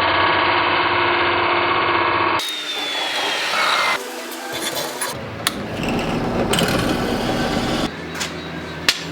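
Power tools working wood in several short cuts: a motor's steady whine, then rougher sawing noise.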